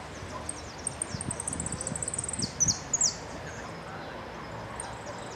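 Caged jilguero finch singing: a fast, high trill of repeated notes from about a second in, then a few loud, sharp high notes in the middle, followed by scattered chirps.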